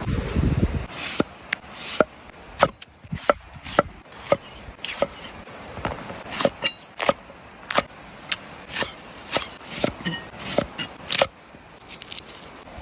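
A knife chopping on a wooden board: a long run of short, sharp strokes at an uneven pace, roughly one to two a second.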